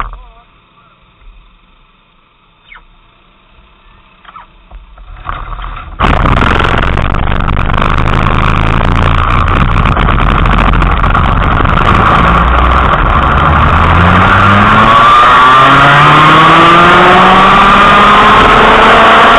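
Racing kart's two-stroke engine heard from on board. A few faint knocks at first, then about six seconds in the engine suddenly comes in loud and runs hard, rising steadily in pitch over the last several seconds as the kart accelerates away.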